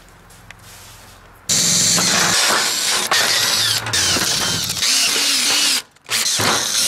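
Power drill boring a hole through a metal strip with a twist bit, cutting with a high squeal. It starts about a second and a half in, stops briefly near the end and starts again.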